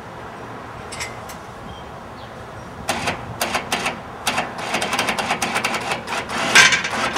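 Irregular metallic clicking and clanking of the motorcycle lift's steel lock pin and tube as the pin is worked free. It starts with a single click about a second in, becomes a dense rattle about three seconds in, and is loudest near the end.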